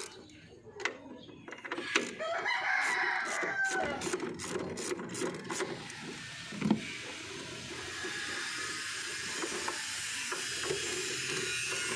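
A rooster crows once, about two and a half seconds in, ending on a falling note. Around it come sharp clicks and then a steady rattle of a ratchet wrench working on a car engine.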